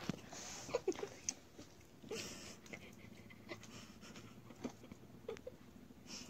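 Two guinea pigs sniffing each other nose to nose: faint breathy sniffs with a few very short, soft squeaks and light ticks.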